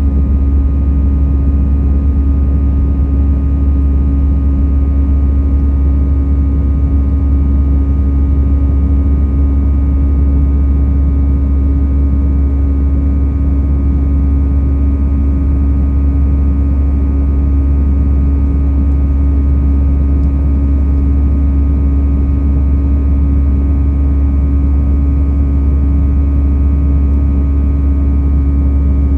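Airbus A320 jet engines running at climb thrust just after takeoff, heard inside the cabin: a loud, steady rumble with a constant hum.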